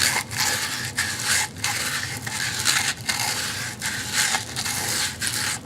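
A small wooden piece being smoothed by hand, with scratchy back-and-forth abrasive strokes at about two to three a second.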